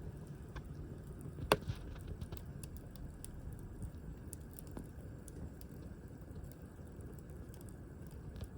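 Firewood burning in an open fire, crackling with scattered small snaps and one sharp loud pop about a second and a half in, over a steady low rush.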